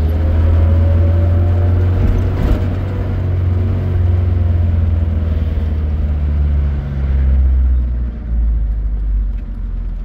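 An engine running steadily with a deep low rumble; its tone drops a little about seven seconds in.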